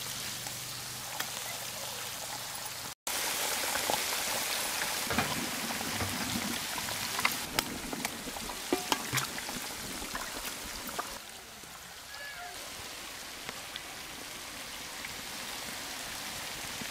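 Eggs and shredded vegetables sizzling in hot oil in a large pan, a steady hiss that drops out briefly about three seconds in. Sharp clicks of a knife blade cracking eggshells stand out over it.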